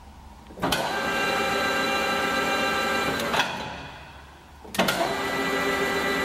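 KAMI DKM 410 L center lathe spindle running under power. It starts abruptly with a click under a second in and runs with a steady whine of several tones. About three and a half seconds in it is switched off and winds down, then it starts again about five seconds in.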